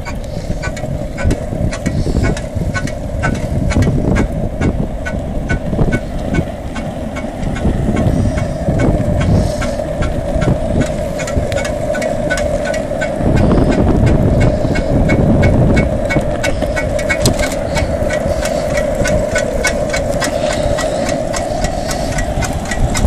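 Skateboard wheels rolling over asphalt, a continuous rumble with a steady hum and a light, regular ticking.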